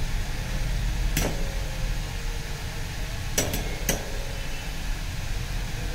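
Sharp metallic click about a second in and a quick run of three clicks near four seconds as a soldering iron is lifted off a phone charging-port board and set aside, over a steady low hum.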